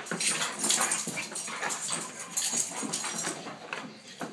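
Weimaraner dogs whimpering, amid a quick run of short scratchy noises that fades a little toward the end.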